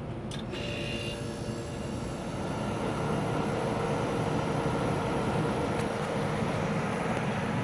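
1988 Whirlpool dehumidifier switched on with a click, its fan starting up and running with a steady rush of air that grows slowly louder; a steady hum joins about three seconds in.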